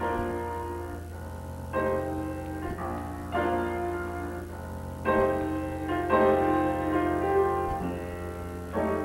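Instrumental music with piano chords, each held for a second or two before the next, over a steady low electrical hum.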